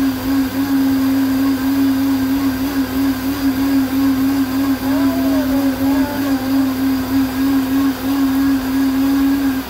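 Countertop blender motor running steadily at full speed, then cutting off abruptly at the end.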